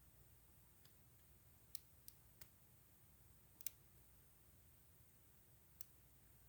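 Faint, irregular clicks of a lock pick and tension wrench working inside a lock, about six in all.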